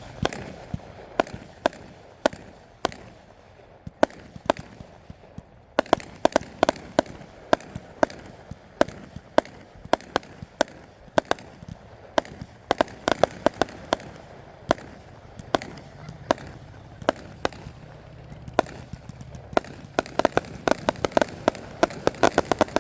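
A 64-shot consumer fireworks finale cake firing: dozens of sharp reports at irregular spacing, coming fastest in a dense volley near the end.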